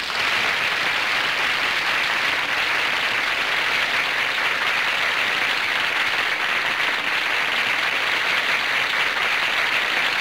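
Large studio audience applauding at the end of a song: dense, steady clapping that breaks out all at once.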